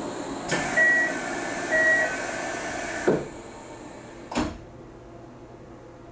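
Kintetsu limited express train doors closing: a rushing noise with two short high beeps as the doors slide, then the doors thud shut about three seconds in, with a second thud a little over a second later.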